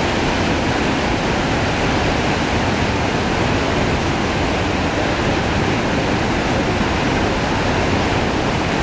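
Whitewater rapids and a ledge waterfall rushing: a loud, steady, even noise of falling and churning river water.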